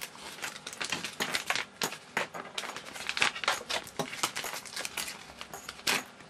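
Sealed defibrillator electrode pouch being torn open and the electrode pads unpacked. The packaging crinkles and crackles in a dense, irregular run of small snaps.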